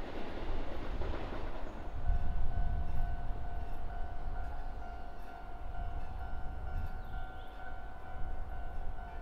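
Electric commuter train running at a station platform: loud rolling noise for about the first two seconds, then a heavy low rumble with a steady high-pitched hum.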